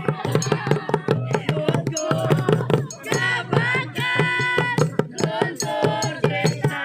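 Group percussion performance: many quick drum strikes in a fast, busy rhythm, with voices singing a melody over the beat.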